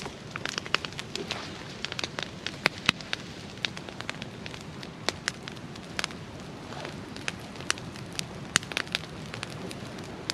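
Wood campfire burning, crackling with irregular sharp pops and snaps over a steady low hiss; pine is among the wood on the fire.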